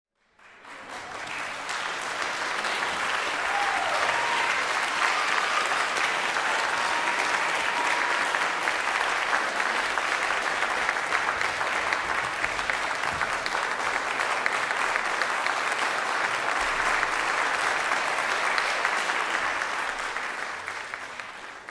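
Audience applauding: a dense, steady clapping that swells over the first couple of seconds, holds, and dies away near the end.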